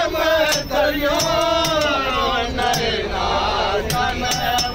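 Men's voices singing a slow, chant-like song with long, wavering held notes, with sharp beats roughly once a second and a steady low rumble underneath.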